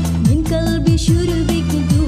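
Loud backing music for a Saman dance, with an even beat of about four strokes a second and repeated falling bass notes under a wavering melody.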